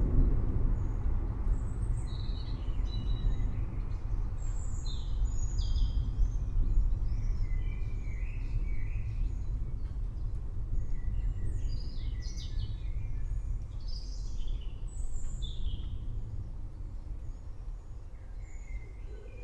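Low rolling thunder rumbling and slowly fading away, with small birds chirping repeatedly over it.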